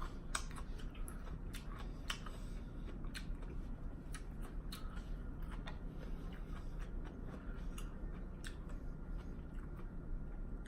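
Chewing and biting into a lettuce wrap, with scattered short crisp crunches and mouth clicks over a steady low background hum.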